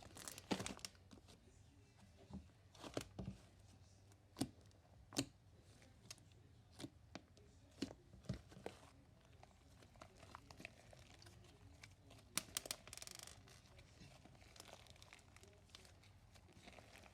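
Hand-played marshmallow slime, stretched and pressed: scattered sharp sticky clicks and pops, with a brief crackling run near the end.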